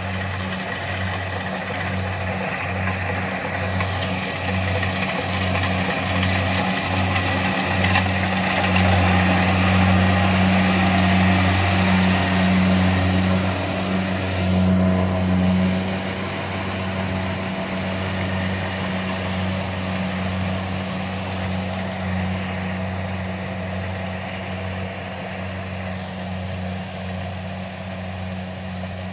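Kubota DC-70 combine harvester's diesel engine running steadily, louder for several seconds in the middle, then easing back.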